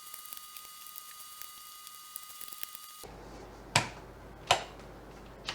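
Faint steady hiss with small ticks, then sharp plastic clicks, three of them from the middle to the end, as the wall light switch and its cover plate are handled.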